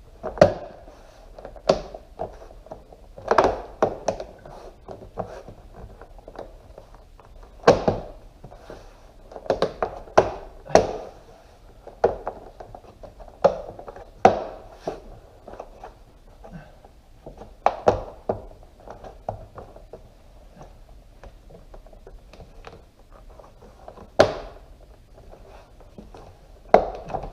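Irregular clicks and knocks of the plastic top cover and metal trim on the front edge of a 2006 Audi S4 convertible top being squeezed and pressed into place by hand, with quieter handling noise between them.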